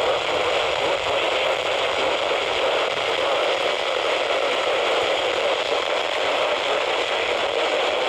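Steady radio static hiss from a weather radio receiver during dead air. It is even and unchanging, with no voice or alert tone on the channel.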